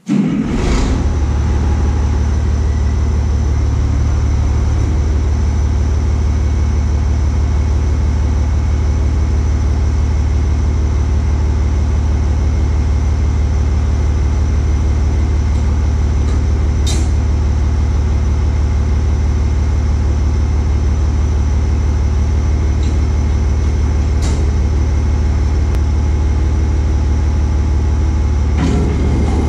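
Tractor engine running at a steady speed, driving a New Holland 853 round baler through the PTO so its apron chain runs after an apron tube replacement, with a couple of short clicks along the way.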